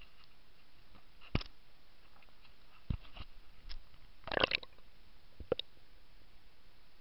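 A handheld camera knocking against the side of a canoe a few times, with a short burst of splashing and gurgling about four and a half seconds in as it is dipped into the river water.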